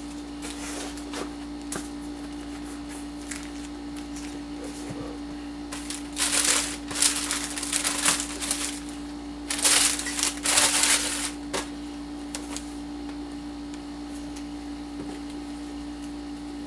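Rustling and crinkling as the sneakers and their packing paper are handled, in several short bursts about halfway through, over a steady electrical hum.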